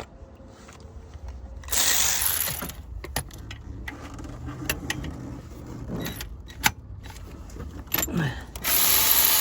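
Metal hand tools clinking and rattling against engine-bay metal as the alternator's upper bracket bolts are undone, with two louder bursts of rushing noise, one about two seconds in and one near the end.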